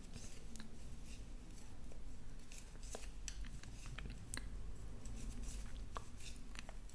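Wooden knitting needles making faint, scattered small clicks and light rubbing as knit stitches are worked.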